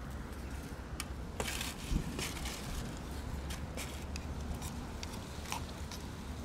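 Scattered clicks and scrapes of a spoon scooping wet cat food out of a can onto a foam tray, over a low steady rumble.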